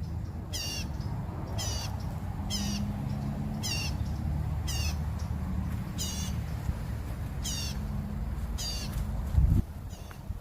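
A bird calling over and over, a short, high, wavering call about once a second. A steady low rumble runs underneath and ends with a thump near the end.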